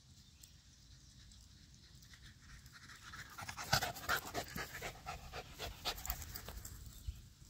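A small Aussie-poodle mix dog panting rapidly and close by, starting about three seconds in, out of breath from sprinting after a thrown ball.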